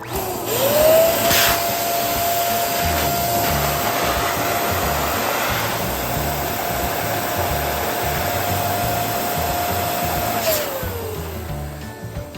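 Electric balloon pump running, a motor whine over a rush of air. It rises in pitch as the motor spins up at the start, holds steady for about ten seconds, then falls away as the motor winds down near the end.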